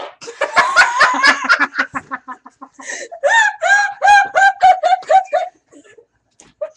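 A rapid sputtering noise for about two seconds, then women laughing in high-pitched giggles, about five pulses a second.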